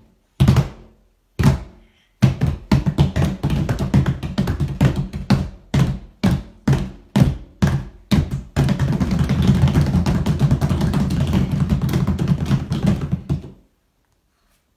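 Hands slapping upside-down flexible plastic tubs played as drums by a small group. A few single hits give way to a run of quick, evenly spaced beats, then a fast continuous drum roll that stops suddenly about a second before the end.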